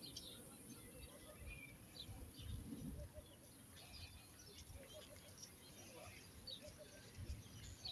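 Faint, scattered bird chirps over a steady high hiss, with a low rumble from wind on the microphone.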